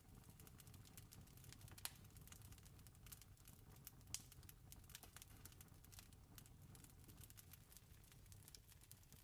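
Campfire crackling faintly, with scattered small pops and two sharper cracks about two and four seconds in, over a low steady rumble.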